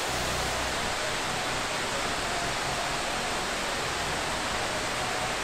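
Steady, even rushing of a waterfall.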